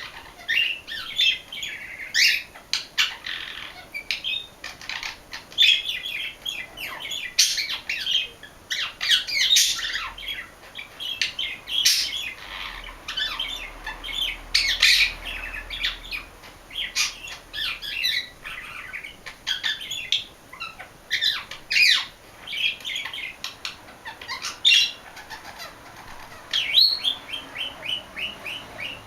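English budgie warbling steadily, a long chattering run of quick chirps broken by frequent sharp clicks and squawks. Its song mixes in calls copied from an Indian ringneck parakeet.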